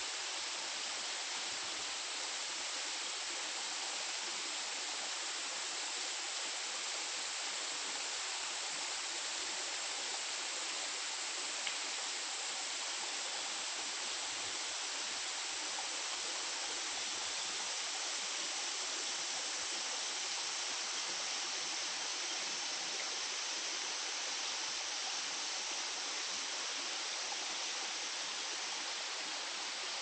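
Waterfall running steadily, an even, unbroken hiss of falling and rushing water.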